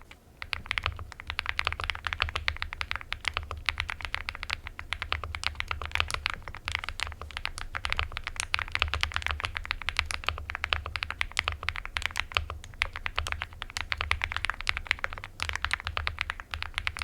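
Mechanical keyboard fitted with KTT Cabbage Tofu switches, typed on rapidly and continuously: a dense stream of key clicks.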